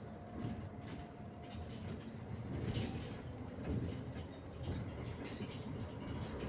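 Ride noise inside a moving vehicle: a steady low rumble of road and engine, with light rattles and clicks over it.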